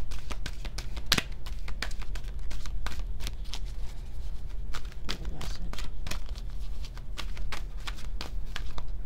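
A tarot deck being shuffled and handled by hand: a run of irregular light card flicks and riffles, over a steady low hum.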